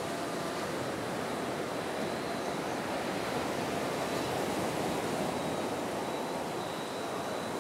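Steady wash of sea surf breaking on a sandy beach.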